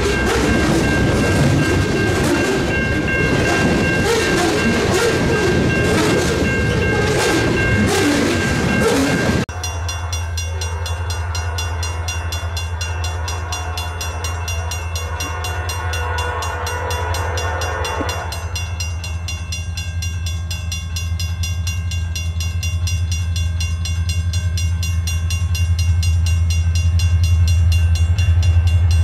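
Freight train passing close by with loud rumbling and knocking wheel noise, and a steady horn chord sounding over it. About nine seconds in the sound changes abruptly to the steady low drone of CN SD70M-2 diesel locomotives, which grows louder near the end as they approach.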